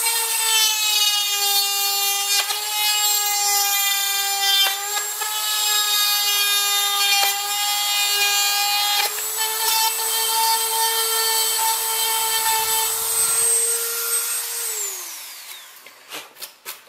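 Dremel rotary tool running at high speed with a steady high-pitched whine, its bit grinding through the scooter's ABS plastic dash panel with a rasping sound as it rough-cuts a hole. About 15 seconds in it is switched off and the whine falls away as the motor spins down, followed by a few light clicks.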